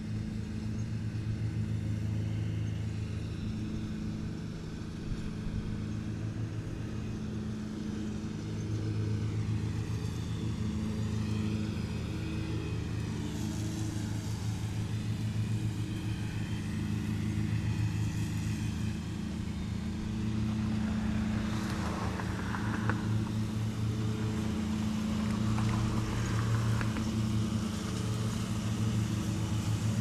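Riding lawn mower engines running steadily while mowing grass, the drone swelling and fading as a mower passes closer and farther away. A few brief sharper sounds cut in about two-thirds of the way through.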